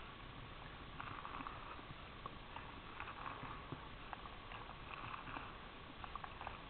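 A kitten sniffing and licking at soft cooked squash: faint, scattered small wet mouth clicks and soft sniffs.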